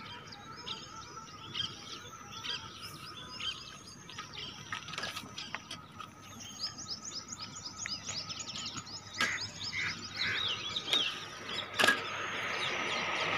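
Many small birds chirping and twittering together in a dense, overlapping chorus, busier in the second half, with a few sharp clicks.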